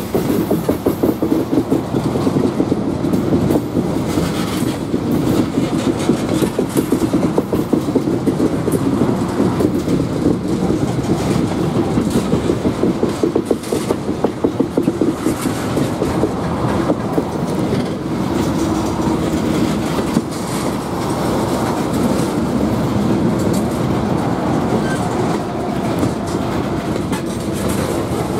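Freight train of steel tank cars rolling slowly past at close range: steady rumble of wheels on rail with a rapid clickety-clack of wheels over rail joints, which smooths into an even rumble about two-thirds of the way through.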